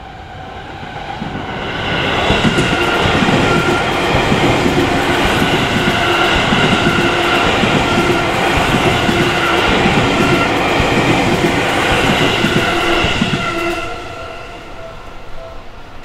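Seibu Shinjuku Line electric commuter train passing over a level crossing. The rumble and wheel clatter build over the first two seconds, stay loud for about eleven seconds, then drop away near the end. The crossing's warning bell rings steadily throughout the pass.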